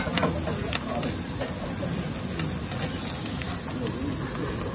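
Raw beef sizzling on a charcoal tabletop yakiniku grill grate, with small crackles, under background voices talking.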